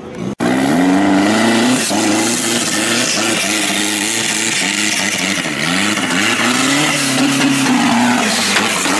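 Off-road buggy engine revving hard under load, its pitch rising and falling again and again as the throttle is worked. The sound cuts out for an instant just after the start.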